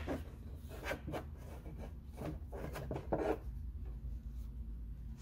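Rubber serpentine belt rubbing and scraping against the engine's cooling fan as it is worked off by hand. A run of short scrapes, the strongest about three seconds in, then it goes quieter.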